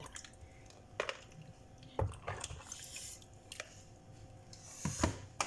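A handful of short, sharp clicks and light knocks of plastic, spread about a second apart, as macaroni salad is scooped from a plastic basin into a black plastic takeaway container.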